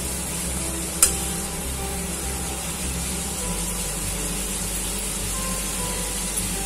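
Shredded cabbage and potato frying in oil in a kadai, stirred with a metal spatula: a steady sizzle with the spatula scraping through the vegetables, and one sharp knock of the spatula on the pan about a second in.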